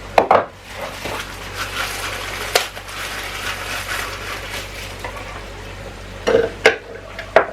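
Parts of a blender being handled and fitted together: a few sharp knocks and clicks over a steady hiss.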